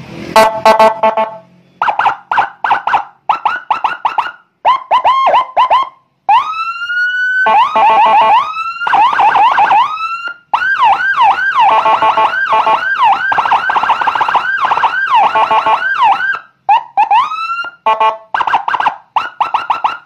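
Custom 100-watt Whelen 295SL-style police escort siren sounding loudly through its horn speaker, switched between tones from a push-button keypad. Short stop-start blasts, a rising wail about six seconds in, then a fast up-and-down yelp of about two sweeps a second for several seconds, and short bursts again near the end.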